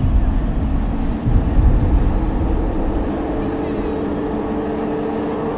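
Deep, uneven rumbling, joined about halfway through by a steady droning hum.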